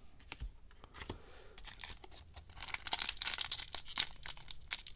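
Foil Magic: The Gathering booster pack wrapper being torn open by hand, crinkling and crackling densely from about two seconds in, after a few light clicks of cards being handled.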